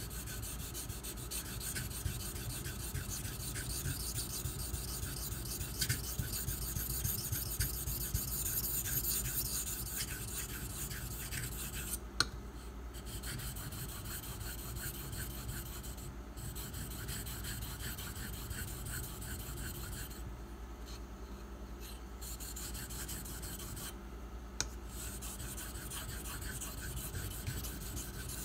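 A 154CM steel knife blade scraping back and forth on a 2000-grit Nubatama Ume whetstone: a steady rasping grind made of many quick strokes, with a few short pauses and a couple of sharp clicks. The blade is being ground to take out a chip left in the edge.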